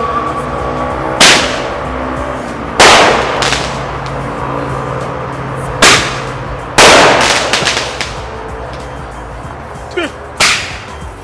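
Roman candle firing: about six sharp bangs a second or so to a few seconds apart, each trailing off, over background music.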